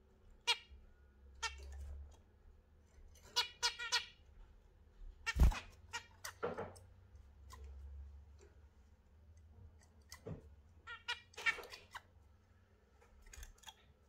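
Caged budgerigars and a zebra finch chirping: short, sharp calls in scattered clusters, with one loud knock about five and a half seconds in.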